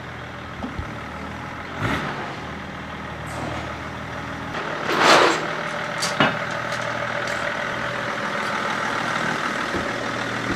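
Land Rover Defender 90 with a swapped-in BMW engine running steadily. A short, loud rush of noise comes about halfway through, with a few knocks around it.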